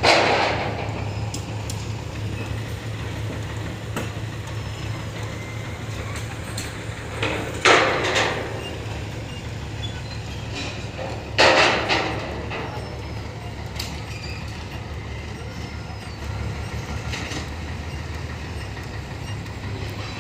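Heavy construction machinery's diesel engine running steadily, with three short, loud noisy bursts: one at the start, one about eight seconds in and one about twelve seconds in.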